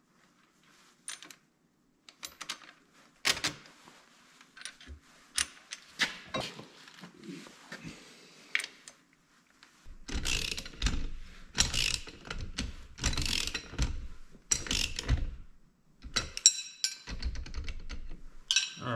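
Hand tools on a Dana 300 transfer case as a twin-stick shifter kit is fitted: scattered metal clicks and knocks at first, then from about ten seconds in a run of short ratcheting bursts as a wrench tightens the shifter bracket.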